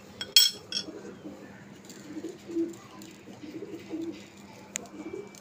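A metal spoon clinks sharply against a small glass bowl about half a second in, the loudest sound. A pigeon coos over and over in low, warbling phrases, with another light click near the end.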